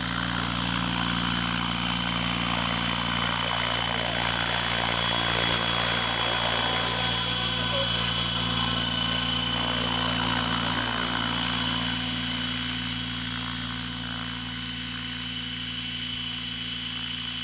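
Align T-Rex 800 radio-controlled helicopter flying and hovering low, its rotors and drive giving a steady high-pitched whine over a low hum.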